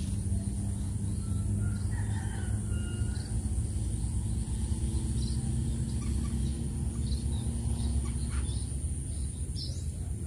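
A rooster crowing in the distance and small birds chirping over a steady low rumble.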